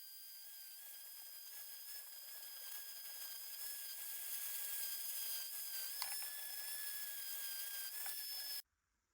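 Small high-speed power tool working on a steel sickle blade: a steady high-pitched whine over a hiss that grows slightly louder, then cuts off suddenly near the end.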